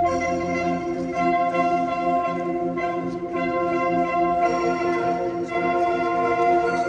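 Ambient background music of sustained, bell-like tones held steadily with a gentle pulsing.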